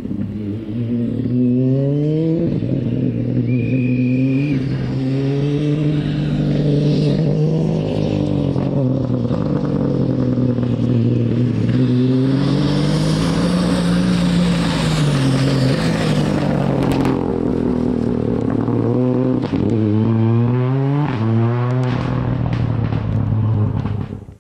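Ford Fiesta R5 rally car's turbocharged four-cylinder engine revving hard on a gravel stage, its pitch climbing and dropping again and again with gear changes and lifts. A burst of gravel and tyre hiss comes as it passes close about halfway through, and a few sharp cracks follow later on.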